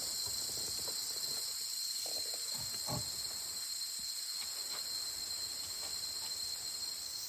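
Steady, high-pitched insect chorus that does not let up, with a few faint small rustles or scuffs beneath it.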